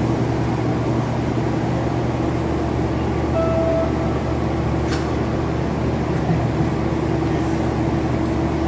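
Steady mechanical hum with a constant whine from a parked, powered-up passenger rail car's onboard equipment running, with a short tone about three and a half seconds in.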